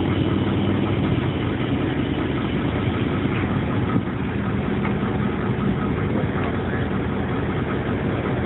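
An engine idling steadily, a low, even drone.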